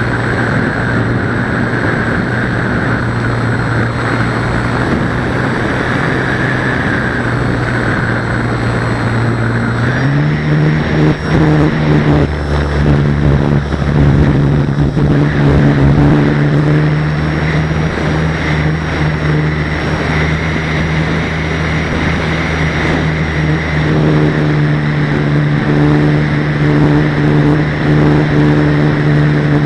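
Radio-controlled model aircraft's motor and propeller droning steadily in flight, with a faint high whine above the drone and wind rushing past the microphone. The drone's pitch steps up about a third of the way through as the throttle is opened, then holds.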